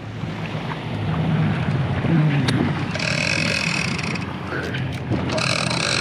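Outboard motor running steadily under wind and water noise. Two stretches of a high buzzing whine come in about three seconds in and again near the end.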